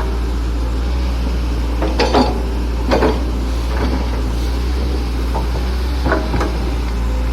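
Excavator's diesel engine running steadily with a low drone, while a series of clunks and knocks come from its working arm and bucket, about six of them, clustered around two, three and six seconds in.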